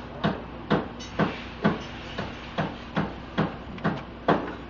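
Ratchet wrench on a long socket extension working a bolt in an overhead-cam cylinder head, giving a sharp metallic click about twice a second with each swing of the handle.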